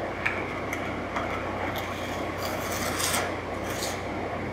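A hand trowel scraping and spreading tile mortar across a plywood backsplash in several rasping strokes, with a couple of light knocks in the first second and a half.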